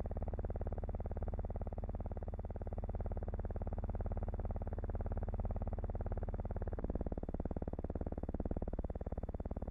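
Aircraft propeller engines droning steadily in flight, with a fast, even beat. The tone shifts about two-thirds of the way through.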